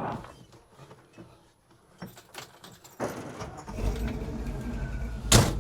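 A few light clicks and keys, then the '66 Chevy C10's 383 stroker V8 starts and runs at a low, steady idle. A single sharp knock sounds near the end.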